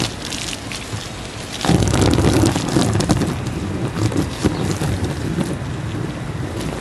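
Water from a garden hose spraying onto a wet trampoline mat: a steady splashing hiss that gets louder and heavier about two seconds in.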